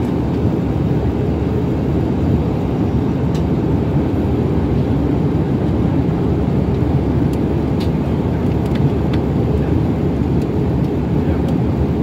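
Steady, even cabin noise of a jet airliner in flight: engine and airflow noise, heaviest in the low range. A few faint clicks are heard over it.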